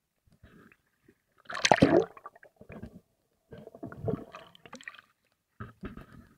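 Sea water splashing and gurgling around an action camera on the nose of a bodyboard, in irregular bursts, the loudest about a second and a half in. The camera is briefly under the water midway.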